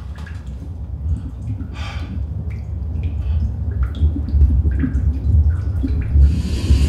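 Water dripping in a small tiled room over a deep low rumble that grows steadily louder, with a man's hard breathing. Near the end a hiss sets in.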